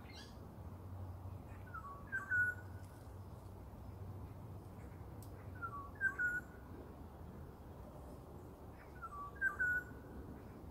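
Black-naped oriole singing a short fluty, whistled phrase of a few notes, three times, about three and a half seconds apart.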